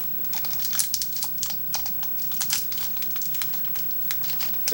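Irregular small clicks and crinkles of a KitKat wrapper being handled by slippery fingers trying to open it.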